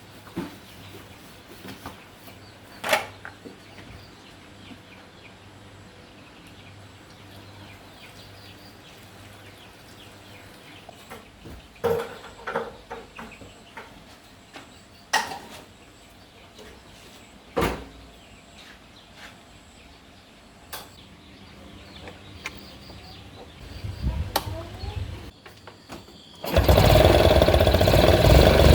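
Scattered clicks and knocks of hand work on the bike. Near the end, the restored Yamaha Sirius's single-cylinder four-stroke engine starts suddenly and runs loudly.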